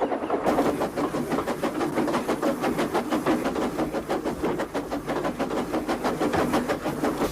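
Sound effect of a train running along, with a fast, even rhythm of several beats a second.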